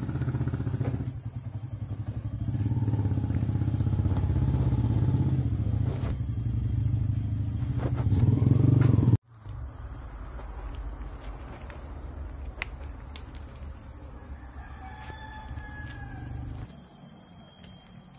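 Domestic cat purring right against the microphone: a loud, fast-pulsing low rumble that cuts off abruptly about nine seconds in. A quieter steady low rumble follows, with a brief higher call about fifteen seconds in.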